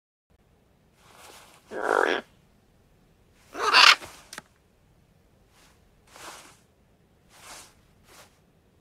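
Macaw calls played by Google's 3D macaw model: a series of short, separate squawks, the two loudest about two and four seconds in, then three fainter ones.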